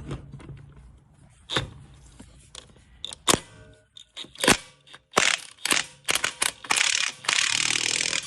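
Metal clanks of a socket wrench on swollen, rusted wheel lug nuts as they are worked loose, then a fast run of ratchet clicking for a second or so near the end.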